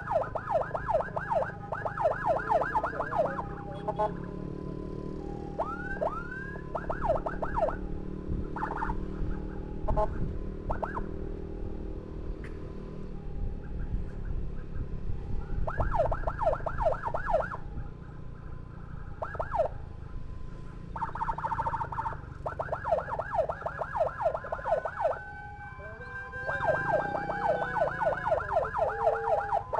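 Electronic emergency sirens of an ambulance convoy sounding in runs of fast yelping sweeps, about five a second, broken by short steady tones, with a slower rising-and-falling wail near the end. A motorcycle engine and traffic rumble run underneath.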